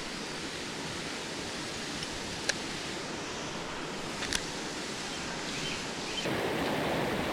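Small waterfalls rushing steadily over a rock wall, a constant hiss of falling water that steps up louder about six seconds in. Two light clicks sound over it, a couple of seconds apart.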